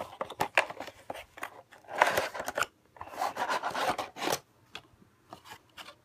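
Cardboard retail box being opened by hand and a clear plastic clamshell tray slid out of it: a run of sharp clicks, then two longer scraping, rustling stretches, fading to a few faint ticks near the end.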